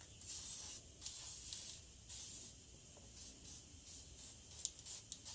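Aerosol can of Tri-Flow lubricant hissing in several short spray bursts, coating the inside of a two-stroke motorcycle cylinder before honing.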